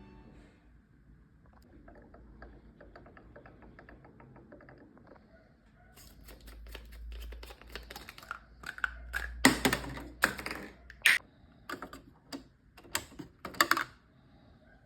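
Hands handling a new printer's packaging: faint crinkling and clicking, then louder scattered clicks and knocks over the second half.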